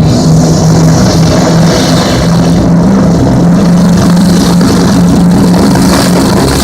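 Aircraft engines droning loudly and steadily in flight, a low hum whose pitch wavers slightly.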